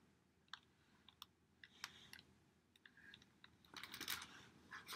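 Near silence with faint scattered clicks, and a soft rustle of a picture book being handled a little before the end.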